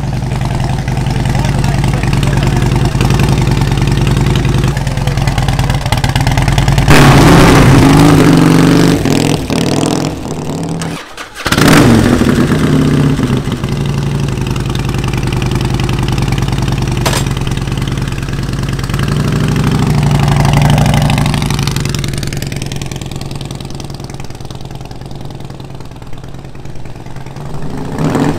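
2004 Harley-Davidson Softail Deluxe's Twin Cam 88B V-twin running through chrome Freedom Sharktail true-dual exhaust: idling, revved hard about seven seconds in, then pulling away and riding past, its pitch sweeping down and back up near the middle and rising again at the end.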